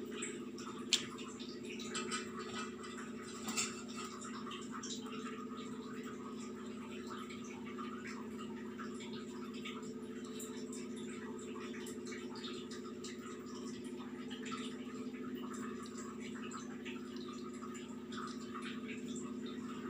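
A steady low background hum, with faint rustles and small ticks of hands pinching and folding momo dough; a sharp tick about a second in, and two softer ones shortly after.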